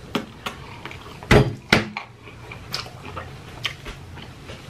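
Close-up wet mouth sounds of eating: chewing, lip smacks and finger-sucking, with two louder smacks about a second and a half in and smaller clicks scattered through.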